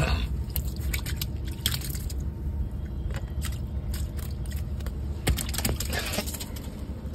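Shallow water on a boat deck sloshing and splashing as a pufferfish is handled in it, with scattered short crunchy clicks over a steady low rumble.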